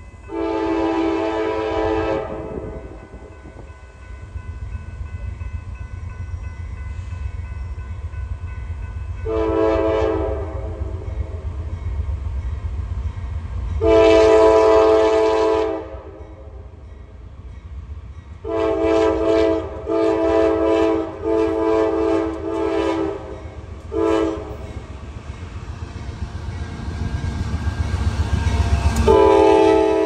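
Freight locomotive's air horn sounding in chords: three separate blasts of about two seconds each, then a quick run of short blasts in a tune-like rhythm, then another blast starting near the end. Under it, the low rumble of the approaching train grows louder.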